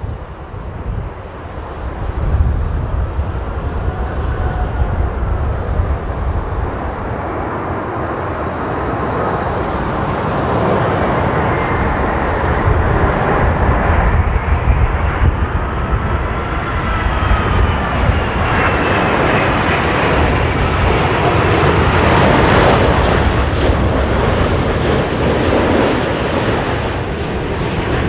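Boeing 787-9 jet engines on final approach, growing steadily louder as the airliner nears. Thin whining tones in the roar bend up and then down in pitch as it comes overhead.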